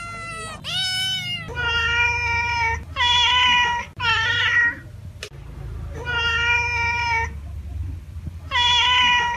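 A domestic cat meowing about six times, each call drawn out for around a second, with short pauses between them.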